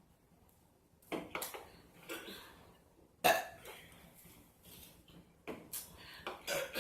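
A series of short human burps with gaps between them. The first comes about a second in and the sharpest about three seconds in, with several quicker ones near the end.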